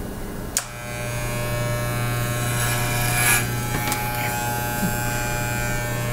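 Electric hair clippers switched on with a click about half a second in, then buzzing steadily as they cut hair.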